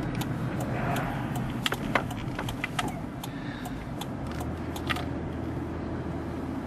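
Car cabin noise while driving slowly: steady engine and road rumble, with scattered light clicks and jingles in the first five seconds. The low rumble grows a little heavier about four seconds in.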